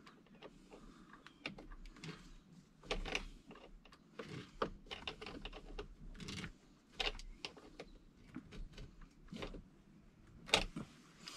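Pliers tightening the nuts on boat battery terminals: irregular small metal clicks and clinks, a few a second.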